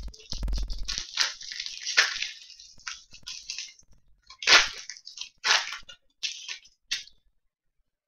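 Upper Deck Ice hockey cards sliding and rustling against each other as a small stack is flipped through by hand: a string of short scraping swishes, the loudest about halfway through, stopping about a second before the end.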